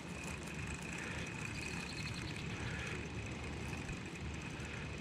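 Steady outdoor background noise: a low rumble with a thin, steady high-pitched tone over it.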